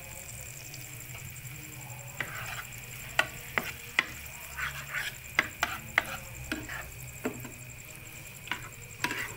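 Wooden spatula stirring food in a non-stick frying pan, with a run of irregular sharp clicks and short scrapes against the pan from about two seconds in, over a steady low hum.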